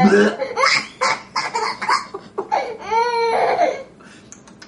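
Toddler laughing in a string of short bursts, with one long high-pitched laugh about three seconds in.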